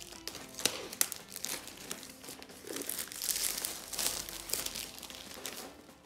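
Packaging crinkling and rustling as the box contents are handled and unwrapped, in irregular crackles that grow denser and louder in the middle.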